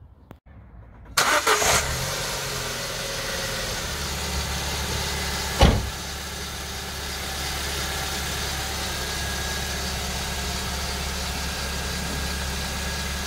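A 2006 Ford Ka's four-cylinder petrol engine starts about a second in and settles into a steady idle. A single loud thump sounds a few seconds later.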